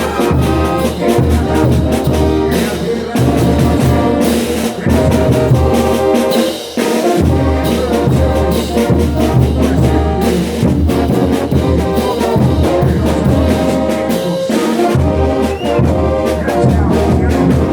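Bolivian carnival brass band playing: trumpets and trombones carry the tune over a steady beat of drums and cymbals.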